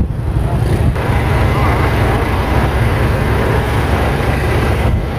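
Vehicle engines running steadily among a crowd, with people's voices mixed in.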